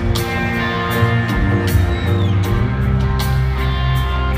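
Live band music over a stadium sound system, with guitar strumming over a heavy, steady bass.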